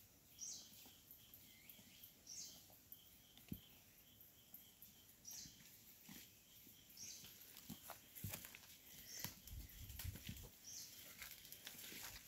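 Faint forest ambience: a short high bird note repeating every second or two over a soft, dotted trill. From about eight seconds in, light crunching and snapping of footsteps through leaf litter and undergrowth joins it.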